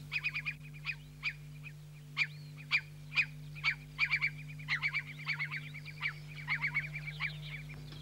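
Curlew calling: short, sharp notes repeated in quick runs of several a second, over a steady low hum.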